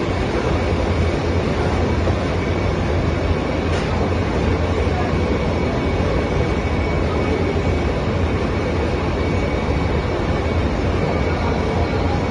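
Steady industrial machine noise: a low hum under an even rush like fans running, with a faint high whine and a single tick about four seconds in.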